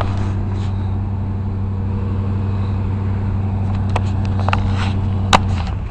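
A vehicle engine idling close by, a steady low hum that stops shortly before the end. There is a sharp knock at the start and another near the end.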